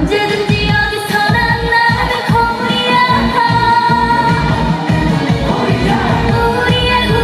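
Live trot music over a stage sound system, with a steady beat and singing.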